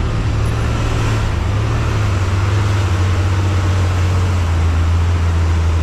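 Twelve-wheel diesel truck's engine running in a low, steady drone under road and wind noise, heard from the cab as the truck takes a hairpin bend slowly; its note drops a little about two seconds in.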